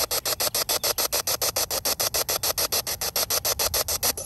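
Spirit box scanning radio frequencies: a steady hiss of static chopped into about ten short bursts a second as it sweeps from station to station.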